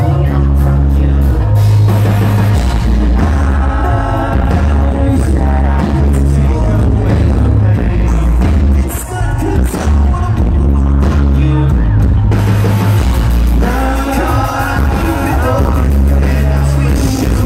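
Live pop-rock band playing loud: a singer over electric guitar, keyboard and drums, with a heavy bass, heard from within the audience.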